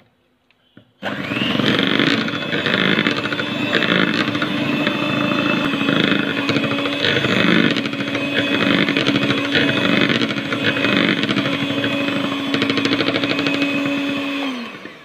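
Electric hand mixer running steadily, its beaters whisking liquid cake batter in a bowl. It switches on about a second in and winds down near the end.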